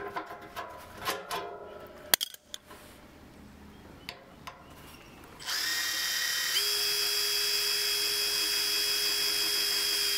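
A Makita brushless cordless impact driver drives a screw into the overlapped steel seam of a 44-gallon drum, running steadily for about four and a half seconds with its pitch stepping up about a second after it starts. A few light knocks and handling clicks come before it.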